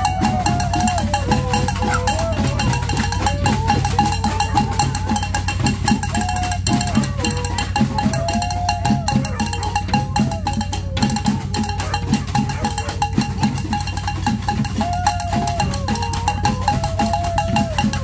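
Homemade tin-can marching band (banda de hojalata) playing: rapid, steady drum and tin percussion beats with a wavering melody over them.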